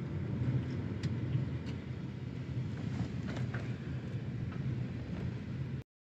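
Steady low rumble of a car driving, heard from inside the cabin: engine hum and road noise, with a few faint clicks. The sound cuts out abruptly for a moment near the end.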